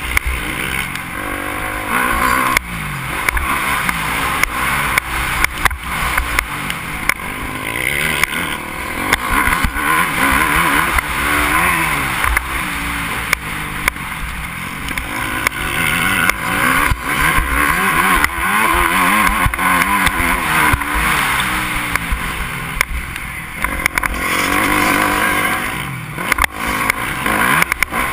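Yamaha motocross bike's engine revving up and down repeatedly as it is ridden hard through the gears, heard from a helmet-mounted camera with wind rushing over the microphone and frequent sharp knocks.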